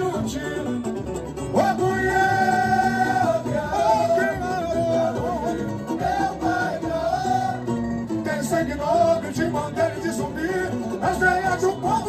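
Live samba-enredo music: voices singing held, wordless lines into microphones over plucked strings and percussion.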